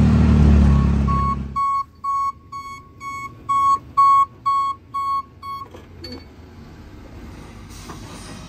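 Dump truck's reverse alarm beeping steadily, about two and a half beeps a second, for some four seconds as the truck backs up; before the alarm, a vehicle engine runs loud and close and cuts off abruptly about a second and a half in.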